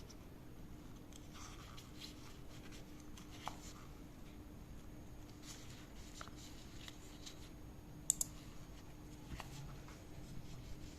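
Faint taps and handling clicks over a low steady hum, then a sharp double click about eight seconds in as a 12 V DC relay pulls in under power: the click that shows the relay is working.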